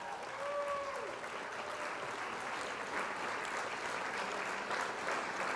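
Crowd applause: a dense, steady patter of clapping, with a few short whistle-like tones in the first second.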